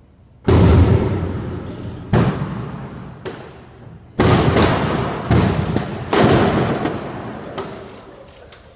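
Stockpiled consumer fireworks going off inside a makeshift garage, set off by a thrown cigarette: a string of about five loud blasts with smaller pops between them, each dying away over a second or so.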